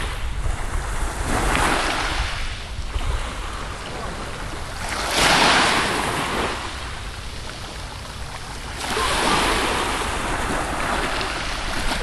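Small sea waves washing in, three swells of surf noise a few seconds apart, over a low rumble of wind on the microphone.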